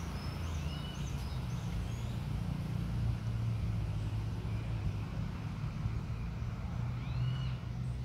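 Songbirds chirping: a run of short high whistles sliding up and down in the first two seconds and one arched call near the end, over a steady low engine-like rumble.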